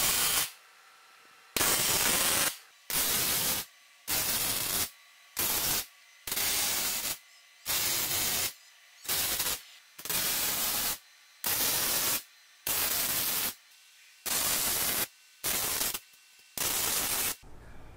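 Arc welding on 3 mm mild steel seams: about a dozen short bursts of crackling hiss, each a second or less, with quiet gaps between.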